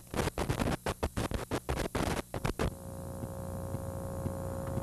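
Sailplane cockpit rattling and knocking hard and irregularly as the glider rolls down the runway on tow at the start of its takeoff. After about two and a half seconds this gives way to a steady hum with one clear tone.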